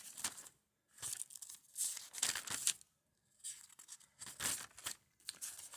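A series of short, irregular rustling or crinkling noises with brief quiet gaps between them.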